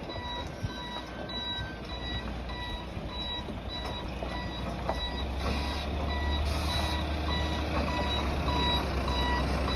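Truck reversing, its reversing alarm beeping at an even pace over the engine, which grows louder about halfway through.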